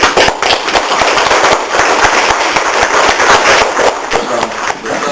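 Audience applauding: many hands clapping at once, beginning abruptly.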